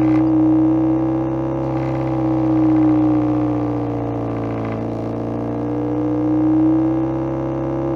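Homemade electronic engine-sound effect imitating the exhaust note of a Subaru EJ20 flat-four with equal-length headers, running as a steady, even hum. Its pitch sags a little in the middle and rises again, with the level swelling and easing slowly.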